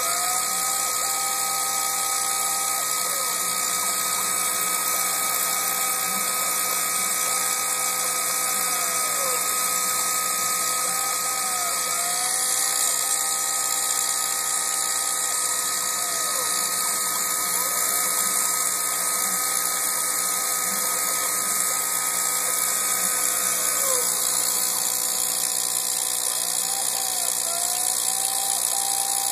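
Milling machine cutting an inner channel: a steady whine with several held tones over a strong high hiss, with a brief dip in pitch every few seconds.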